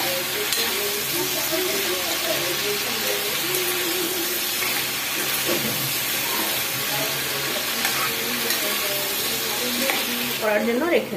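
Chopped vegetables and spinach frying in a pan with a steady sizzle while being stirred with a spatula.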